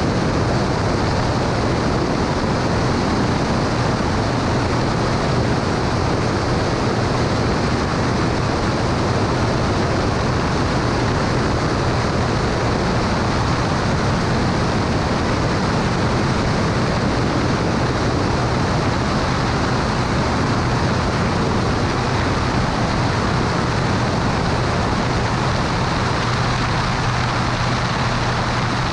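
Cessna 210 Turbo Centurion's turbocharged six-cylinder engine and propeller running steadily at power: a constant low drone over a thick, even rush of noise.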